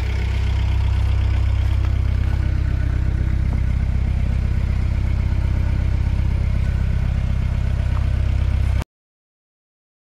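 1976 Mercedes-Benz 240D's four-cylinder diesel engine idling steadily, with a fast, even pulsing. The sound cuts off suddenly near the end.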